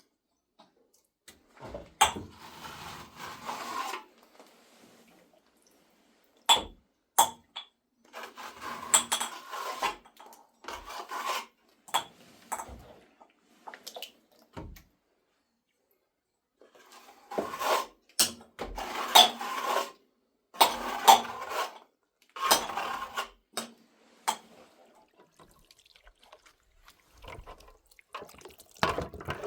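Pots and utensils clinking and scraping amid splashing water, in bursts of a few seconds with sharp knocks and quiet pauses between.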